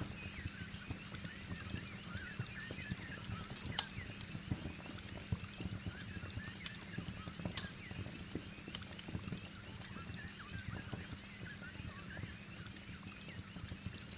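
Wood fire crackling in a fireplace over a steady rain background, with two sharp pops, one about four seconds in and one about seven and a half seconds in.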